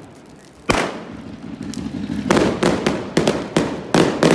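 Aerial fireworks bursting overhead: one sharp bang about a second in, then a rapid string of cracking bangs from about halfway on.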